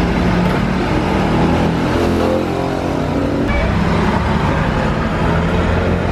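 Motor vehicle engine running close by amid steady street traffic noise, its pitch rising and falling about two to three seconds in.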